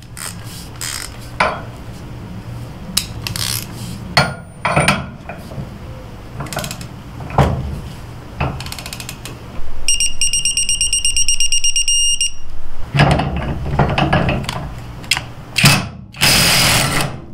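Digital torque wrench ratcheting and clicking as a hitch-ball nut is tightened, its beeper sounding a fast run of high beeps for about two seconds in the middle as the 100 ft-lb setting is reached. Near the end a burst of about a second from the cordless 1/2 in. impact wrench breaking the nut loose.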